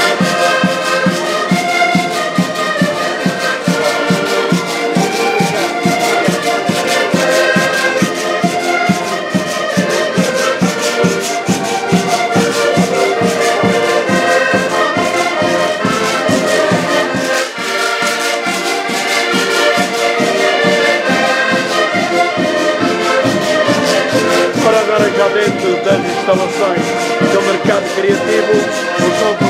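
Accordion ensemble playing a tune together, with sustained chords over a steady beat from the bass side and a brief dip a little past halfway.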